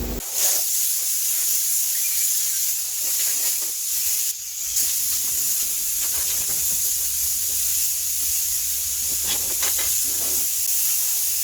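Wet sanding of clear coat on a pickup truck's box: sandpaper rubbing over the wet paint with a steady hiss, briefly breaking off about four seconds in.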